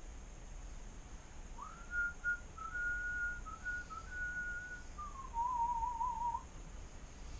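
A man whistling a short tune: a string of held notes and little steps, falling near the end into a lower, wavering trill.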